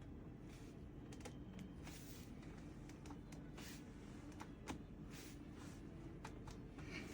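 Faint scattered clicks and rustles of a patient being positioned on a chiropractic treatment table, over low room hum, with one slightly sharper click about four and a half seconds in.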